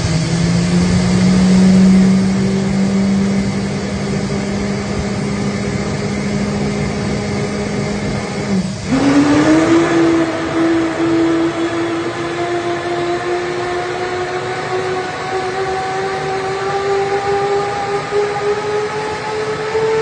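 F-15 fighter jet's twin engines running with a steady whine. About nine seconds in the pitch jumps up and then keeps slowly rising as the engines spool up.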